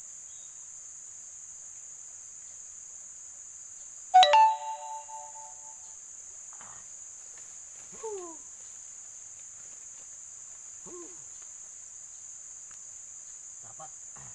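Steady high-pitched drone of forest insects, broken about four seconds in by a single bell-like ding that rings out over about a second and a half. Two short falling whistle-like calls follow later.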